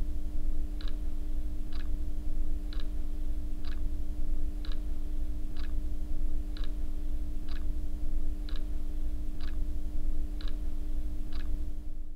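A clock ticking about once a second over a steady low hum, cutting off suddenly near the end.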